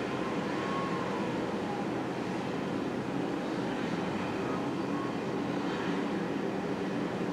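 Steady city traffic rumble, with a faint wavering tone briefly in the first couple of seconds.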